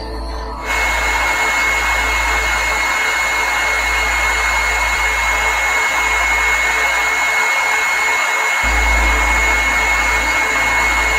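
Loud, harsh hiss like static, with a steady high whistle running through it, over a low droning hum as part of an electronic music track. The hiss switches on abruptly under a second in and cuts off suddenly at the end.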